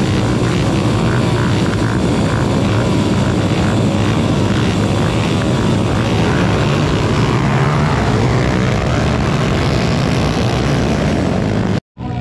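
A pack of small motorcycle engines idling and revving together at the start line, a dense, loud, wavering buzz of many engines at once. It cuts off suddenly near the end.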